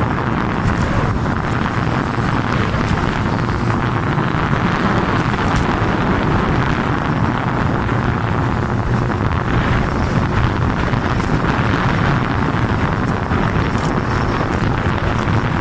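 Steady wind rush on the microphone of a moving motorcycle, with the engine and road noise running underneath.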